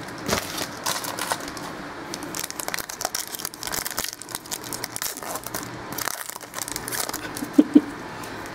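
A trading-card pack wrapper being torn open and crinkled by hand, with irregular crackling throughout. Two quick knocks come close together near the end.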